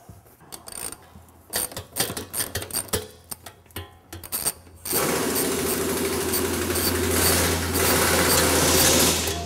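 Scattered light metallic clicks and knocks as the top of a stainless truck air cleaner is handled. Then, about five seconds in, a handheld power tool runs steadily for about four seconds, undoing the air cleaner's top-cap fastener, and stops just before the end.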